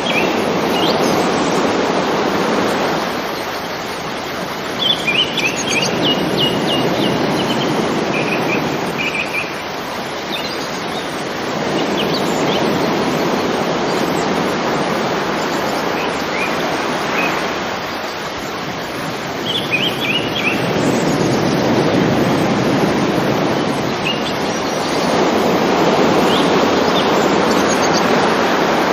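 River water flowing in a steady rush that swells and eases every several seconds. Small birds chirp in short bursts now and then above it.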